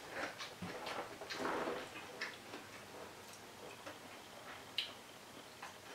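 Close-up chewing of crispy fried dried anchovies (dilis): irregular crunchy clicks and wet mouth noises, with a louder crunch about a second and a half in and a sharp click near the end.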